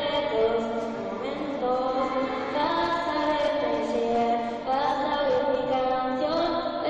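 A young girl singing a slow melody without words heard clearly, holding each note for about a second and gliding between pitches.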